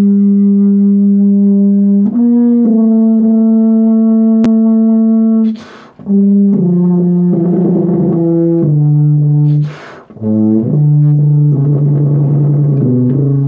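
Miraphone 186 BBb tuba playing a slow, legato melody in long held notes. The line steps downward in pitch in the second half, broken twice by short pauses for breath between phrases.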